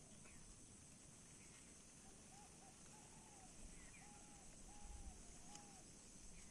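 Near silence: faint outdoor ambience with a steady high hiss, and a run of about six faint short arching calls in the middle.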